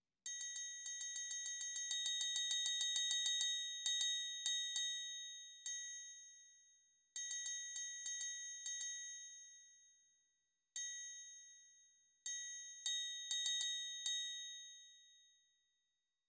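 Cowbell part of a percussion quintet played back from a notation score: a fast run of even strokes that grows louder, then short rhythmic figures of strokes separated by rests, each stroke ringing with a clear metallic tone. The last strokes ring out shortly before the end.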